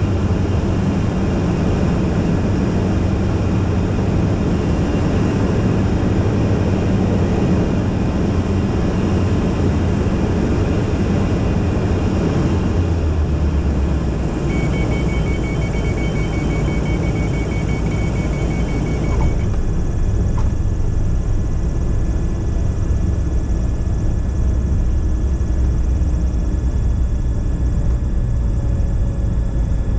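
Cockpit noise of a Robin light aircraft's piston engine and propeller running steadily on final approach. About halfway through the engine note changes as the aircraft comes down over the runway, and a steady high two-tone note sounds for about five seconds. In the later part the plane is rolling along the runway with less hiss.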